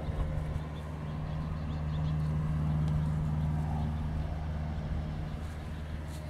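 A steady low mechanical hum, like a motor or engine running, that swells slightly a couple of seconds in and eases off again.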